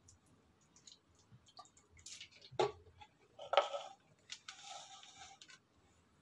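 Light clicks and knocks of kitchen containers being handled around a plastic food-processor bowl while ingredients go in. There are two louder knocks about two and a half and three and a half seconds in, then a hiss lasting about a second.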